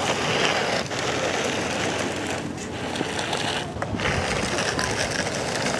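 Steel toy construction truck scraping and rattling in dirt and gravel, a continuous gritty crackle with a few short breaks, as dirt is scooped and loaded into a truck.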